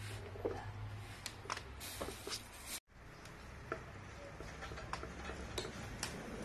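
Scattered light clicks and taps of plastic stand-fan parts being handled and fitted together, over a faint low room hum, with a brief dropout about three seconds in.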